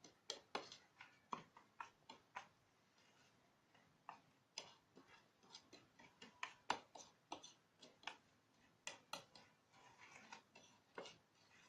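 A spoon stirring a spice-and-oil marinade in a bowl: faint, irregular clicks and taps of the spoon against the bowl, a few a second.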